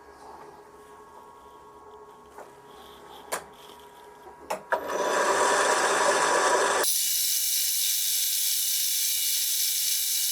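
A few light clicks, then about five seconds in a loud, steady rasping hiss starts as a workshop tool works the aluminium handle. About two seconds later it thins to a higher hiss.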